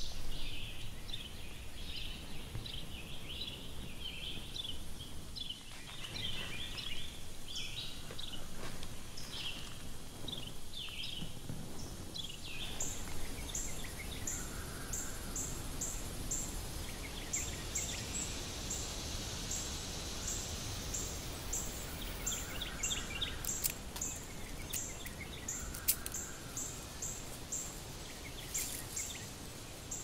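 Woodland ambience: many small birds chirping through the first half, then a high, short chirp repeating evenly about twice a second through the second half, over a faint steady hiss.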